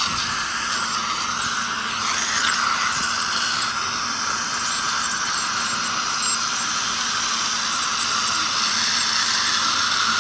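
Ultrasonic dental scaler spraying water on the lower teeth, with dental suction running, as tartar is scaled off: a continuous hiss with a faint low hum under it.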